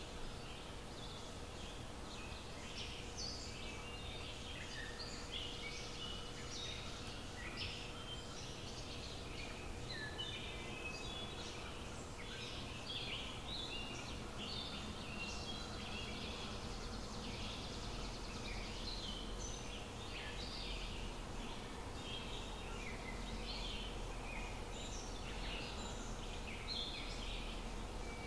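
Outdoor bird chorus: many short chirps and calls overlapping without a break, over a low steady hum.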